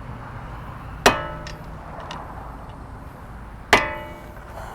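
Two ringing metal hammer strikes, about two and a half seconds apart, staking the axle nut's collar into the notch in the front axle so the nut cannot back out.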